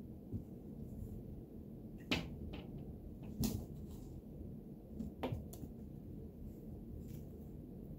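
Three sharp knocks, a few seconds apart, as a cat climbs and jumps about on a wooden cat tree with sisal-wrapped posts, over a faint steady low hum.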